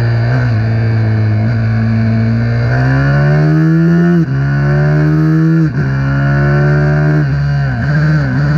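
Small racing motorcycle engine running hard. Its pitch climbs, then drops sharply twice a few seconds in, as a gear change does, and it dips again twice near the end.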